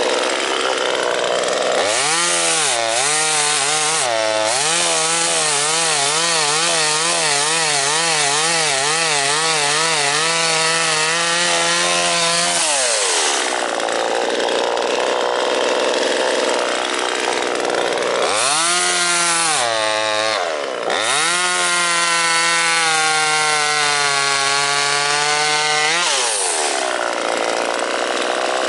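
Small 25.4cc two-stroke chainsaw making two cuts into a log. Each time it revs up, then its engine note drops and wavers under the load of the cut. It falls back to a high idle between the cuts and after the second.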